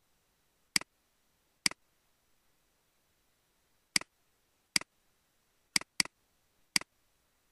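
Computer mouse button clicking, seven sharp single clicks spaced irregularly, two of them in quick succession like a double-click about six seconds in.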